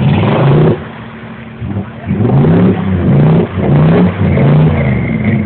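Jeep engine revving hard in a run of quick surges as it drives through deep mud and water, with a brief easing off about a second in.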